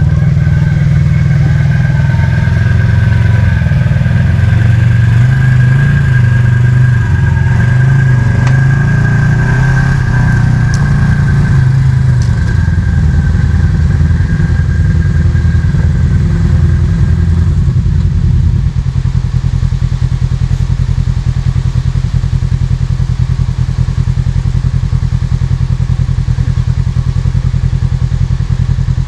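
Kawasaki KRX side-by-side's parallel-twin engine running at low crawling speed. A thin high whine rides over the engine through the first half and stops a bit past halfway, where the engine note settles lower and steadier.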